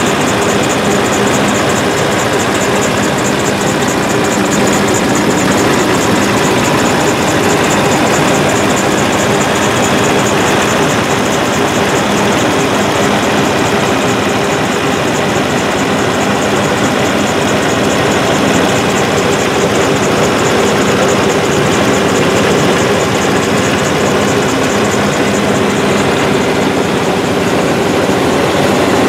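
Diesel engine of a Godwin CD500M Dri-Prime mining pump running steadily: an even drone with a steady high hiss over it.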